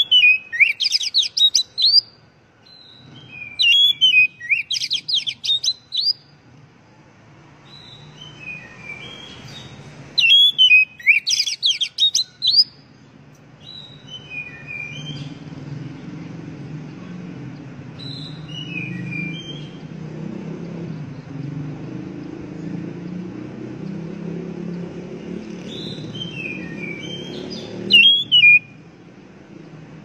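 Oriental magpie-robin (kacer) singing loudly in bursts of rapid sweeping trills mixed with short whistled notes. There are three long phrases in the first half, quieter single notes in between, and one short burst near the end.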